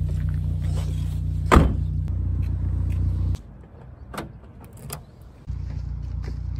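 A car door shuts with one loud thud about a second and a half in, over a steady low hum. After a sudden drop to quiet, a key turning in a car's door lock gives two sharp clicks, and the low hum comes back near the end.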